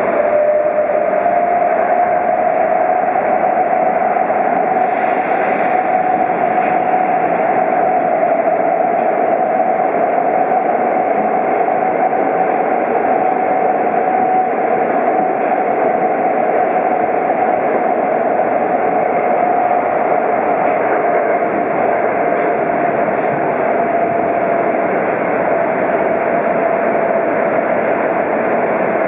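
Tokyo Metro 02 series subway train running at speed through a tunnel, heard from inside the car: a steady rumble of wheels on rail with a whine that climbs slightly in pitch at first and then holds. A short hiss about five seconds in.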